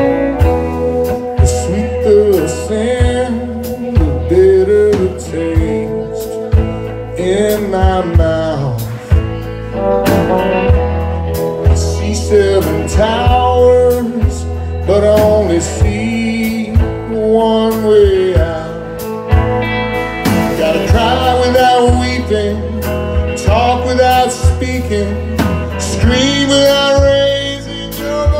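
Live blues band playing: electric guitars, bass, drums and keyboard, with a bending lead melody over a steady beat.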